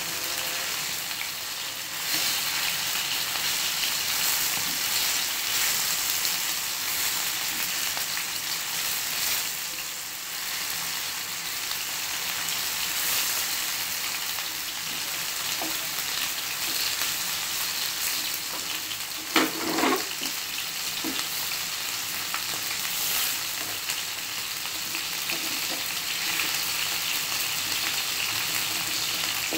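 Chicken 65 pieces, coated in gram-flour masala, frying in hot oil in a pan with a steady sizzle while a spatula stirs and turns them. A short sharp knock about two-thirds of the way in.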